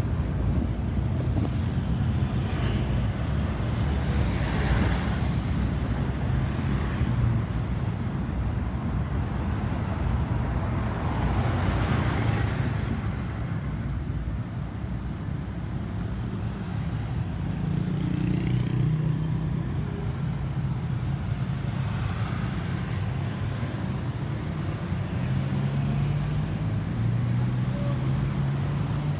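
Road traffic: vehicle engines running steadily, with louder vehicles passing about five and twelve seconds in. No siren is sounding.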